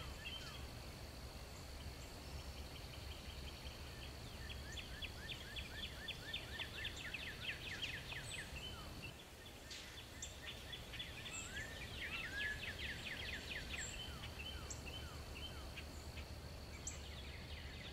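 Wild birds singing: several rapid trills and short high chirps, over a steady high whine that drops out briefly about halfway through.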